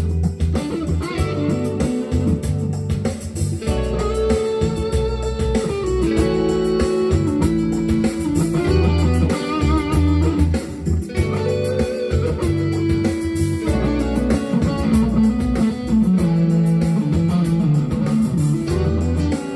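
Electric guitar, a GEARIT GST 100 Strat copy, playing single-note lead lines with sliding notes over a funk backing track in B minor with bass and drums.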